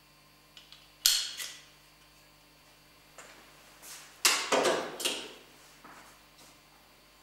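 Sharp metallic clicks and clinks of metal printing type and a metal composing stick being handled and set down, followed about four seconds in by a louder cluster of knocks and clatter.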